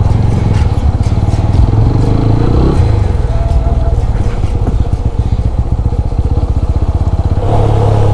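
TVS Apache RTR 200 4V single-cylinder engine running while the motorcycle is ridden, its note shifting about two and a half seconds in and growing louder near the end.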